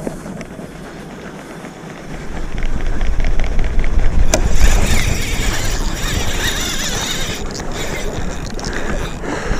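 Wind buffeting the microphone with a low rumble and water splashing around a sea kayak. The rumble swells up about two seconds in, a single knock comes near the middle, and a few seconds of hissing splash follow.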